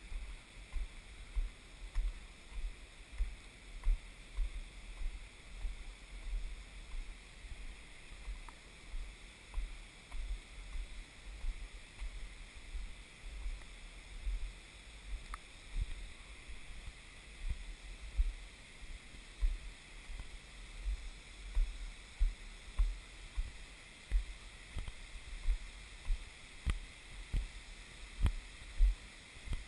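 Footsteps of someone walking up stone steps and onto a boardwalk with a handheld camera, heard as dull low thumps at a steady walking pace of about two a second, over a steady high hiss.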